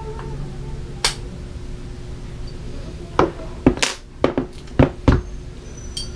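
Hand tools clicking and knocking against the metal parts of a PCP air rifle's action while it is being worked on. One sharp click about a second in, then a quick run of about six clicks and knocks between three and five seconds in, and a faint metallic ping near the end.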